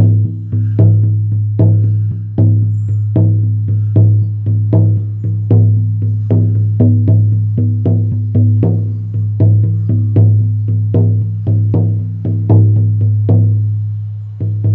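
18-inch horse-skin shamanic frame drum on an ash frame, played steadily with a firm beater. Each stroke has a sharp attack and a deep, lingering boom, in a strong-weak pairing about every 0.8 seconds, with a brief pause near the end.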